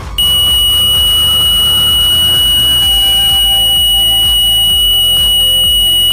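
Buzzer of a homemade metal detector sounding one steady high-pitched tone, starting just after the beginning and held without a break: the detector's alert that metal is in range. Quieter background music runs underneath.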